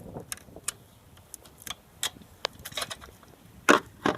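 Irregular metallic clicks and clinks of bolts and hand tools against the engine bracket while alternator mounting bolts are being started by hand. Two louder knocks come near the end.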